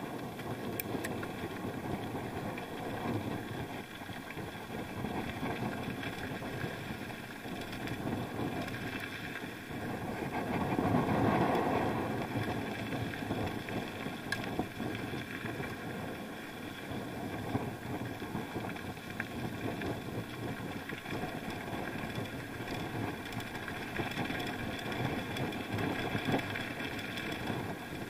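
Steady rumbling ride noise from a bike on the move, picked up by an action camera, swelling louder for a couple of seconds near the middle.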